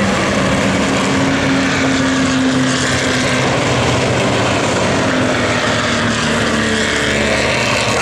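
Several historic Formula Vee race cars with Volkswagen-based engines running hard as they pass on the circuit. Their engine notes overlap and drift up and down in pitch.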